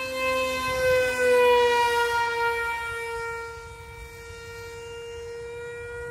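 Radio-controlled foam Su-27 model jet's electric motor whining in flight: one steady tone with many overtones. It gets louder and drops in pitch as the model passes, about one to two seconds in, then runs on more faintly at a steady pitch.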